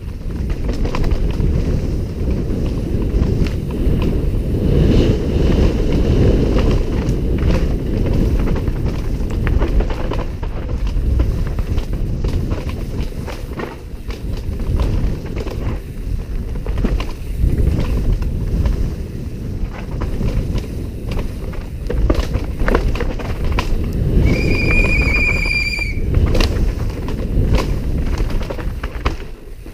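Downhill mountain bike ridden fast over dirt and rocks, heard from a helmet-mounted camera: heavy wind buffeting on the microphone, with the clatter and knocks of the bike and tyres over rough ground. About three-quarters of the way through, a high steady squeal lasts about a second and a half.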